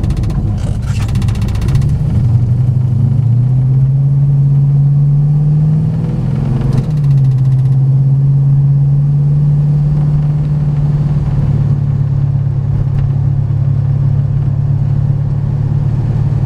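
Car engine heard from inside the cabin, pulling away from a stop: its pitch climbs steadily, drops sharply at a gear change about seven seconds in, then holds steady as the car cruises.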